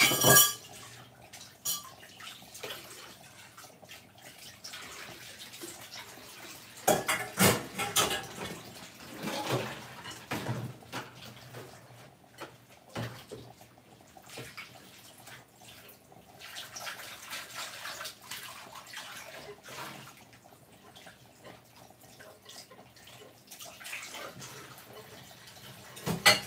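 Pot of potatoes boiling vigorously under a glass lid, a steady bubbling, with a few sharper clicks and knocks in bursts near the start, around seven to eleven seconds in, and near the end.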